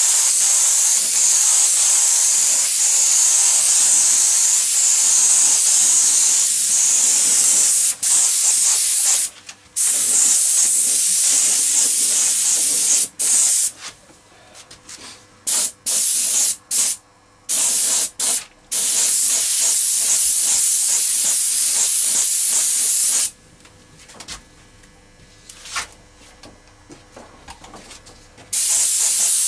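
Compressed-air paint spray gun spraying primer-filler: a loud, steady hiss in long passes. The hiss starts and stops abruptly each time the trigger is let go, in several short bursts towards the middle and with a pause of a few seconds near the end.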